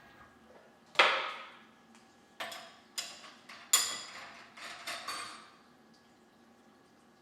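Hard metal pieces knocking and clinking: one sharp knock, then a run of about five lighter clinks, several with a short high ring.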